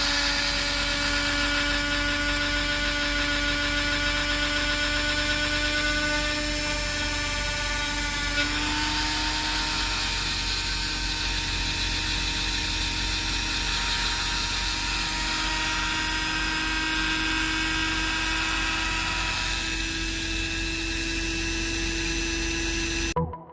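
Dremel rotary tool running steadily at high speed with a motor whine, its pitch shifting slightly about a third of the way through as it drills into a silver piece. It cuts off suddenly near the end.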